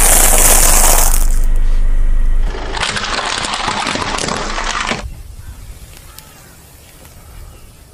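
Car tyre rolling over and crushing peanuts in their shells and then a small plastic toy: dense crackling and crunching with sharp snaps. The sound drops much quieter about five seconds in, as the tyre presses into a soft cream cake.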